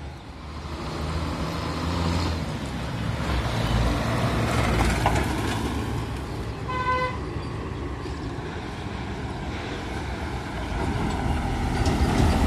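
Tata 1612 SE truck's six-cylinder diesel engine running as the truck drives past, with one short horn toot about seven seconds in. Near the end an Eicher dump truck's diesel engine grows louder as it approaches.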